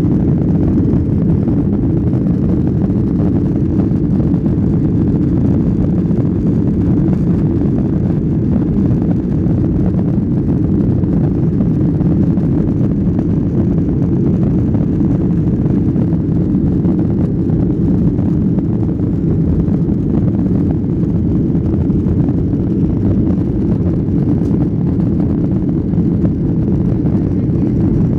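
Airliner cabin noise: a steady low rumble of jet engines and rushing air heard from inside the cabin, unchanging throughout.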